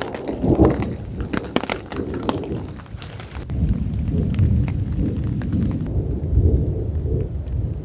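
Rain tapping on a tarp shelter, then from about three and a half seconds in a long, low rumble of thunder rolls on steadily.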